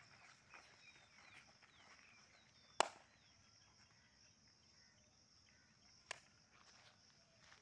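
Quiet open-air ambience: a faint steady high hiss with a few faint bird-like chirps. Two sharp clicks cut through it, a louder one a little under three seconds in and a softer one about six seconds in.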